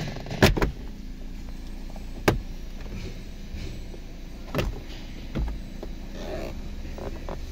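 Instrument-cluster cover clips on a Toyota Corolla dashboard snapping loose as the cover is pulled off: three sharp clicks about two seconds apart, then a dull knock, over a steady low hum.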